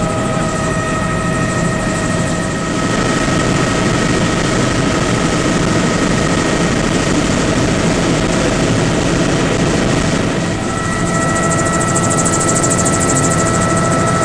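Helicopter engine and rotor noise heard on board in flight, a loud steady rush with a thin high whine over it. The whine fades out about three seconds in and comes back near the end.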